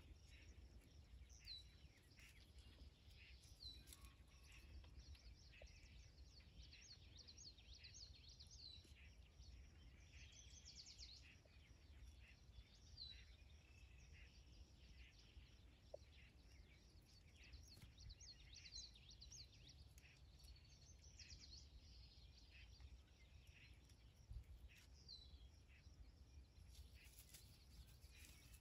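Near silence outdoors: faint, small birds chirping and twittering again and again over a low steady background rumble.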